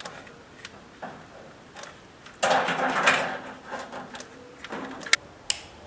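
Handling noises from a caulking gun and silicone tube: scattered sharp clicks, a louder scraping rasp lasting about a second starting about two and a half seconds in, and two more sharp clicks near the end.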